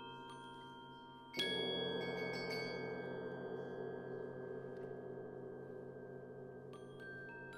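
Contemporary percussion ensemble playing: a few high, bell-like mallet notes, then about a second and a half in a single loud stroke on a large metal instrument that rings on and slowly dies away. Light, high ringing notes come back near the end.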